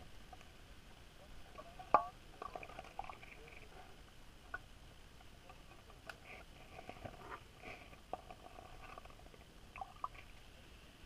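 Underwater sound picked up by a camera lowered beneath lake ice: scattered faint clicks and short squeaky chirps, with one sharp click about two seconds in.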